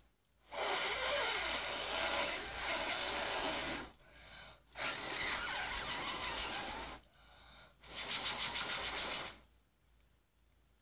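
A person blowing hard on a metal fidget spinner held against the lips, in three long breaths with short pauses between them; the last breath flutters rapidly.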